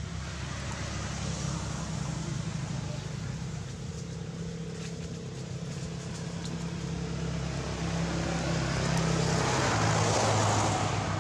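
Steady low hum of a running engine, with a rush of noise that swells about nine seconds in and eases near the end.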